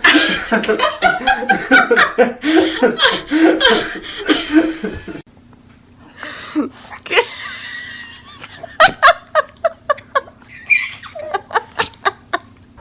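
People laughing hard for about five seconds, cut off suddenly. This is followed by a run of short, sharp bursts near the end.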